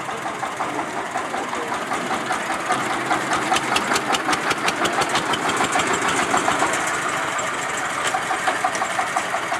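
Diesel engine of a vintage Diesel-Ameise dumper running with a steady, knocking putter, getting a little louder about three seconds in.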